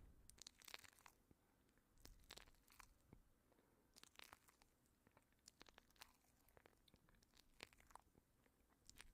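Faint, irregular crunching and crackling of nacho chips.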